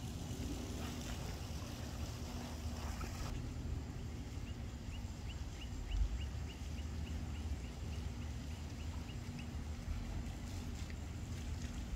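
A bird chirping in a quick, even series of short high chirps, about three a second, for roughly five seconds mid-way. Under it runs a low steady rumble with a faint hum.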